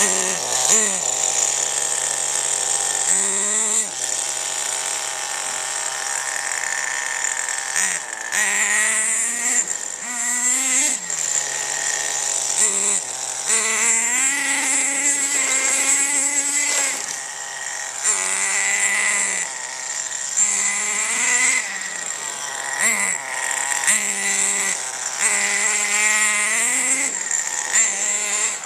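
Small nitro engine of a radio-controlled truck revving up and down many times, falling back to a steady idle between each rev.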